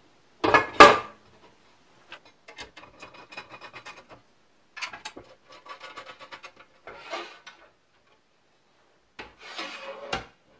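An aluminium-extrusion tabletop knocks down onto the pantorouter's aluminium frame about half a second in. Then come stretches of metal parts rubbing and clicking quickly, as screws are threaded into the table and the table swings up on its steel tilt arcs.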